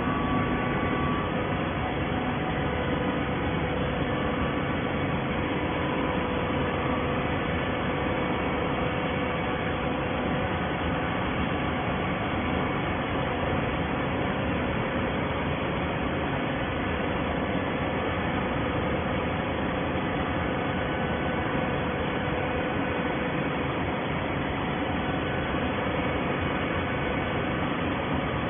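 Waste paper baler machine running: a steady mechanical hum and hiss with no distinct knocks or strokes.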